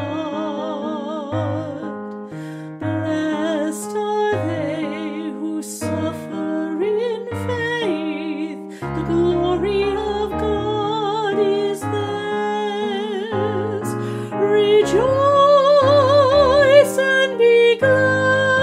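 A hymn sung by a solo voice with vibrato, accompanied by piano; the music grows louder near the end.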